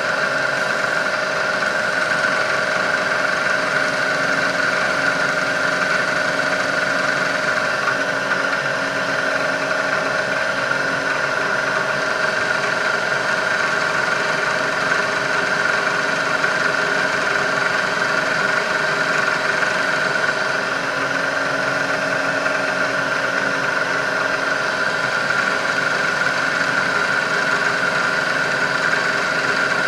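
Drilling machine's spindle running steadily with a constant whine while a drill bit cuts a hole to a set depth of 0.250 in. in a cast-iron lathe compound.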